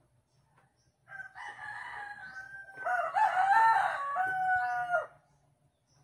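Rooster crowing: a fainter crow starts about a second in, then a louder crow follows from about three seconds in and stops near the end.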